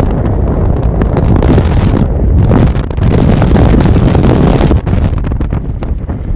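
Strong wind buffeting the microphone: a loud, low, gusting rush that eases a little about five seconds in.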